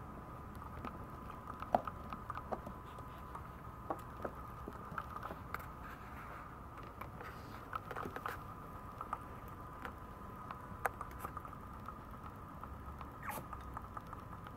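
Maltese puppy's claws tapping and scratching on a plastic mesh pee tray: scattered light clicks at irregular moments, over a faint steady hum.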